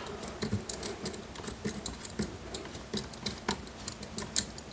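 Folding hex key turning a small machine screw into a metal robot-arm frame: a run of light, irregular metallic clicks and ticks, about four or five a second.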